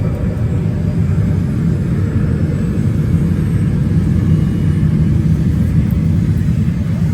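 Airbus EC130 ECO-Star helicopter running on the ground: a loud, steady, deep rumble of turbine and rotor.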